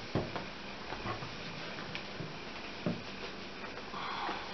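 Handling noise as denim doll jeans are pulled onto a Smart Doll's legs: a few short, soft knocks and faint rustling.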